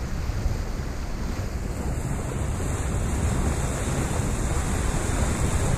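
Wind buffeting the microphone of a sailing yacht under way, a steady low rumble, with water rushing along the hull.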